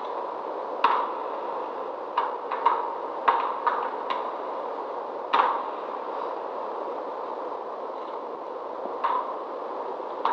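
Experimental ensemble soundtrack: sparse, irregular sharp clicks and knocks over a steady hiss with a faint hum. About nine strikes come mostly in the first half, and the loudest, about five seconds in, has a brief ring.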